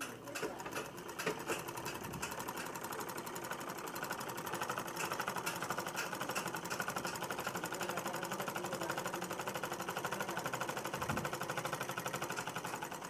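Sewing machine stitching a seam through cloth, its needle mechanism ticking rapidly. It picks up speed over the first few seconds, then runs at a steady fast pace.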